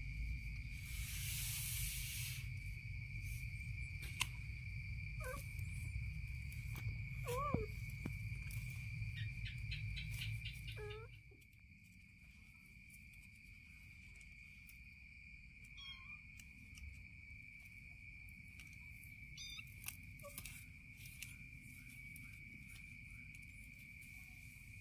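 A steady high insect drone, like crickets, with a few short gliding calls and scattered light clicks and rustles from the cats scuffling on the mat. A low rumble underneath stops about eleven seconds in.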